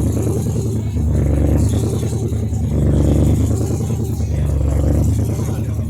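Mitsubishi Pajero rally car engine running steadily, swelling and easing a few times.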